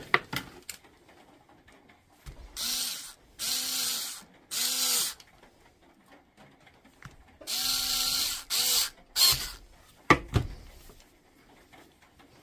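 A power tool's electric motor run in six short bursts, each rising and falling in pitch, in two groups of three. There are sharp knocks of tool handling near the start and about ten seconds in.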